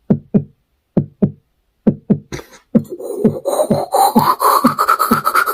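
Beatboxed sound effect: short mouth-percussion thumps in pairs, then a quicker run of beats under a steadily rising pitched tone.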